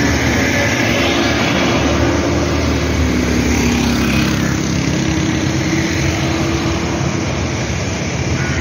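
Road traffic passing close by: a steady wash of engine and tyre noise, with a vehicle's engine note dropping in pitch as it goes past partway through.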